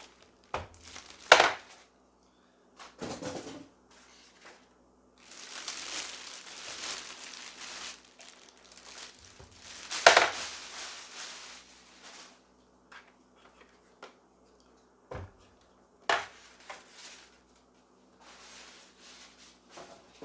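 Unpacking noise: a clear plastic bag being pulled off a sewing machine crinkles and rustles, and styrofoam packing pieces are handled, with a few sharp knocks as things are set down on the table, the loudest about ten seconds in.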